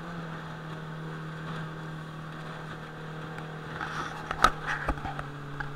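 Jet outboard motor driving an aluminium jet boat upriver through rapids, running at a steady pitch over the rush of water. A few sharp knocks sound near the end.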